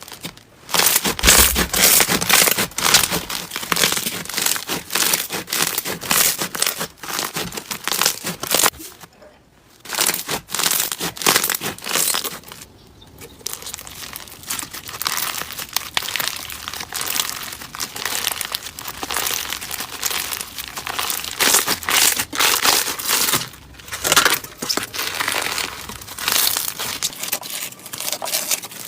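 Slime being squeezed and worked by hand, giving a dense run of crackling and popping, with brief pauses about a third of the way in and again shortly after.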